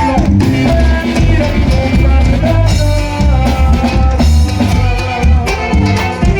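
Norteño band playing an instrumental passage of a corrido, with drum kit and bass keeping a steady beat under the melody lines.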